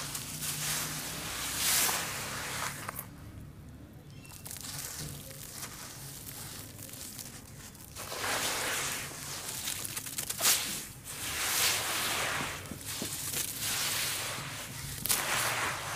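Hands crumbling and squeezing wet, gritty charcoal ash in a plastic tub, making crunching and crackling with a few sharp cracks. It goes softer about three seconds in and louder again from about eight seconds.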